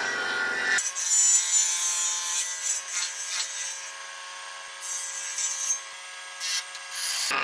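Table saw on a combination woodworking machine cutting a pine block. The motor hums steadily while the cutting noise rises and falls as the wood is fed through the blade.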